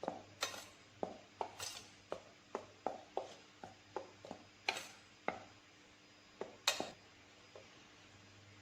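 A utensil stirring a dry mix of flour, chilli powder and salt in a bowl, knocking against the bowl in a run of quick irregular taps, about two or three a second. The taps stop about seven seconds in.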